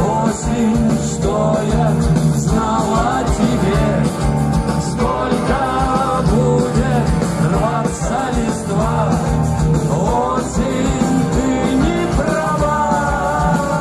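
Rock band playing live: a man singing over acoustic guitar and bass with a steady drum beat.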